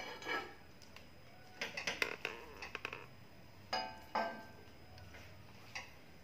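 A metal serving spoon scraping and clinking in a stainless-steel kadai as cooked kodo millet pulao is spooned out. There is a quick run of light scrapes and taps about two seconds in, then a few single clinks that ring briefly.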